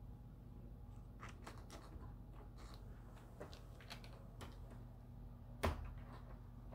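A cat pawing and scratching at the bottom of a closed door and the carpet: a run of faint scratches and clicks, then one sharp louder knock against the door near the end.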